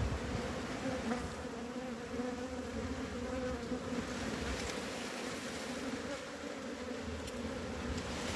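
Honeybee colony buzzing steadily around an open hive, a dense, unbroken hum of many bees.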